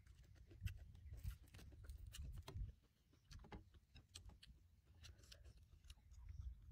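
Quiet, scattered clicks of chopsticks and a spoon against a plate and bowl, with a faint low rumble now and then.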